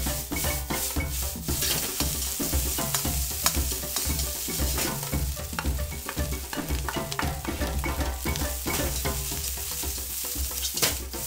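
Fried rice sizzling in hot oil in a wok while a metal ladle and a wooden spatula scrape and knock against the pan, with frequent sharp clacks.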